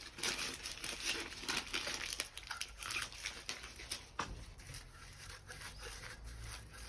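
Aluminium foil tape crinkling and crackling as it is handled and pressed down by hand, dense for about four seconds and then thinning out.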